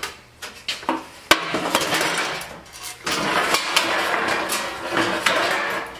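Steel frame and thin sheet metal being handled on a workbench: metal clanks and clatter, with a sharp clank about a second in, then rattling, scraping sheet metal.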